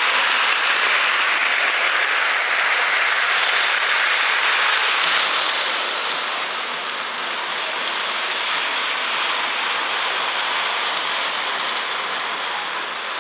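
Lionel toy train running on its track, a steady hiss-like noise that grows gradually quieter over the second half as the train is slowed down.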